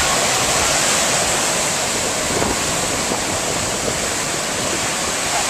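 Ocean surf breaking and washing up the beach: a steady, loud rush of waves.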